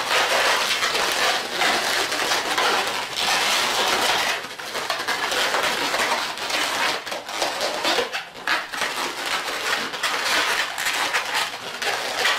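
Inflated orange latex modelling balloons rubbing and squeaking against each other and the hands as they are twisted and squeezed tight together, a continuous run of rubbing with short breaks about four and eight seconds in.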